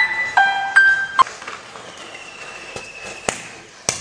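Plucked-note background music for about the first second, then the hiss and crackle of matchsticks igniting one after another in a chain, with a thin steady whistling tone in the middle and a few sharp pops near the end.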